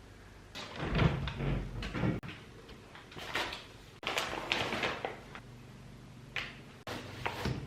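Irregular knocks and rustling of cupboard doors and drawers being opened and shut while rummaging for clothes.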